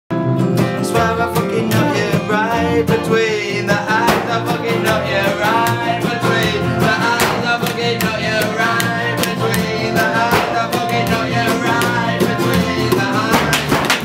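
A small band playing: a man singing over acoustic and electric guitars and a double bass, with a washing machine struck as the drum, its beats sharp and regular.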